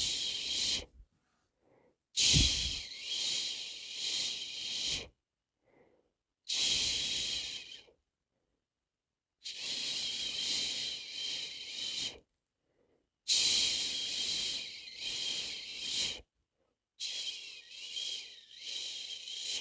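A person shushing, a long 'chshhh' breathed out again and again, about six times with short silent pauses between, the soothing shush used to lull a baby to sleep.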